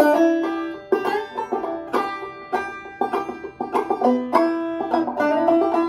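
Five-string banjo played clawhammer style: a quick, even run of plucked notes, each struck and left to ring.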